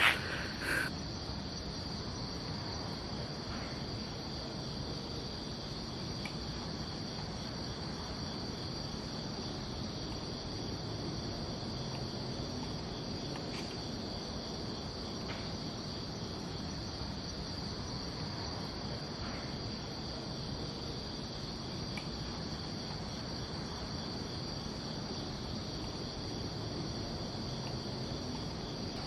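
A steady, high-pitched chorus of crickets trilling in the night, over a faint low background hiss. A couple of brief knocks are heard right at the start.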